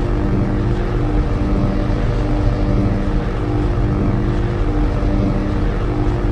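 Steady, loud, low droning rumble with a constant hum, like a large engine or propeller drone: a sound-effect track.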